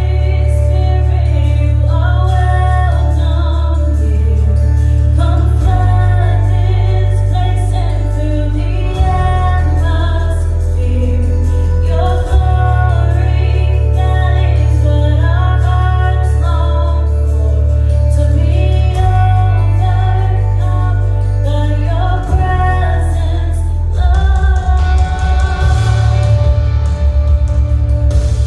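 A Christian praise song: sung melody over a steady bass line that changes note every few seconds, with a busier rhythm starting near the end.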